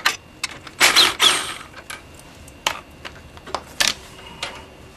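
Hand tools working on motorcycle muffler mounting bolts: a loud metallic rattle about a second in, then a few separate sharp metal clicks.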